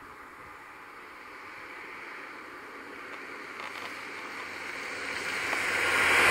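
A vehicle passing, its rush of sound growing steadily louder and coming to its loudest at the very end, with a low engine hum at the peak.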